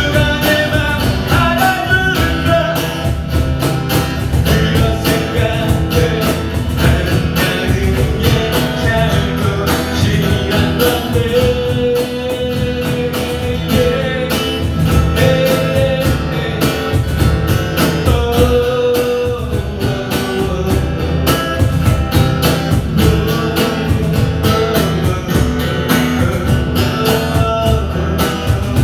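Live acoustic guitar playing with a cajón keeping a steady beat.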